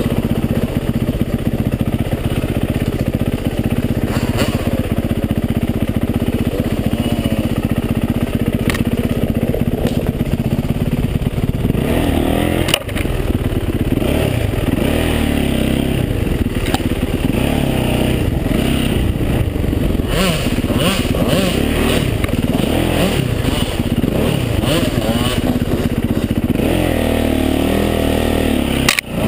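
Yamaha motocross bike engine, heard close from the rider's helmet, running hard and revving up and down repeatedly as the bike is ridden, the revs swinging more widely from about halfway through.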